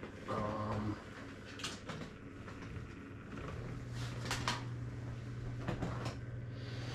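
Hands handling a camcorder and its power cable: a few sharp plastic clicks and knocks. A steady low hum comes in about halfway through.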